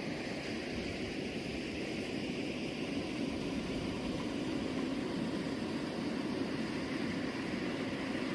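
A steady rushing of water that stays even, with no distinct splashes or knocks.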